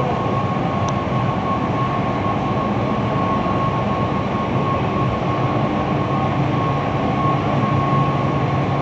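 Santa Lucia stenter (fabric tentering and finishing machine) running steadily under test, woollen fabric passing over its rollers: a continuous mechanical rumble with a steady whine.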